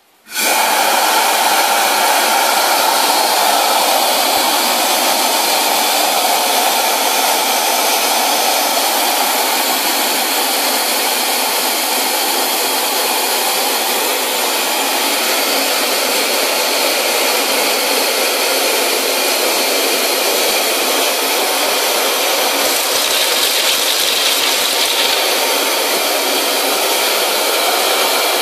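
Compressed-air-driven (pneumatic) wet and dry vacuum cleaner starting up the moment its air valve is opened, then running with a loud, steady rushing hiss. A few faint clicks come through near the end.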